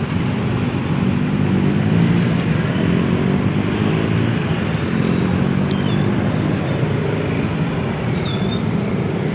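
Road traffic at a railway level crossing: vehicle engines running and tyre noise, a steady mix with no clear single event.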